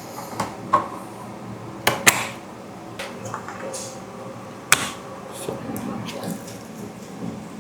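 Sharp clicks and knocks as parts are handled and fitted back onto a 3D printer's frame, about half a dozen irregular hits, the loudest about 2 s in and just before 5 s.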